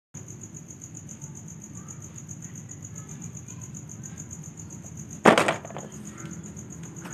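Insects chirping steadily outdoors in a fast, even, high-pitched pulse, with a single sharp clatter a little after five seconds in as a plastic toy horse figurine is dropped into a plastic basket of toy animals.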